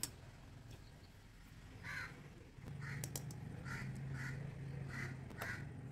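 A bird's short, harsh calls, about six of them, repeated half a second to a second apart, over a faint steady low hum that starts about halfway through.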